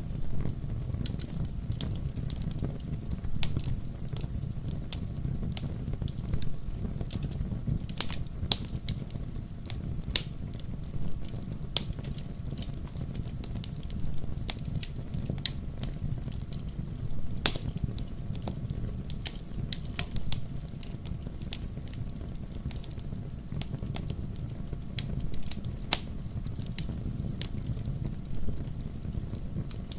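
Bonfire crackling, with irregular sharp pops and snaps of burning wood over a low steady rumble.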